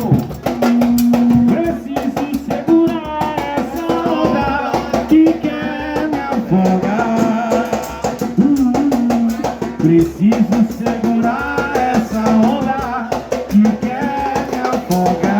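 Drums and rattles playing a dense, fast rhythm, with a voice singing over them.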